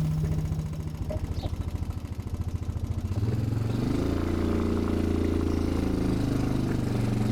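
ATV engine idling with a fast, even putter, then picking up revs about three seconds in and running steadily.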